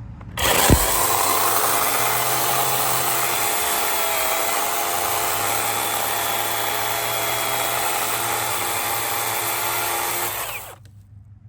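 DeWalt FlexVolt battery chainsaw's electric motor spinning up with a quick rising whine. It runs steadily for about ten seconds, then winds down with a falling whine.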